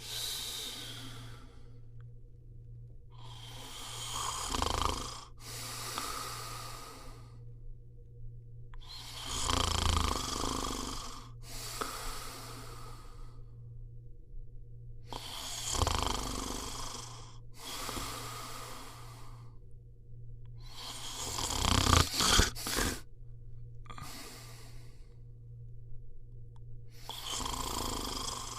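Snoring in slow cycles about every six seconds, each a snore on the breath in followed by a breath out, over a steady low hum. The loudest snore, about three quarters of the way through, ends in a few sharp snorts.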